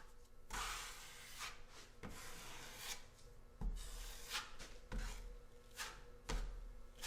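Drywall knife spreading joint compound over a wall patch: repeated scraping strokes as the compound is pressed firmly through the patch.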